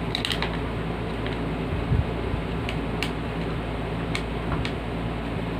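Scattered light clicks and a dull knock about two seconds in, as plastic box-fan parts are handled, over a steady low hum.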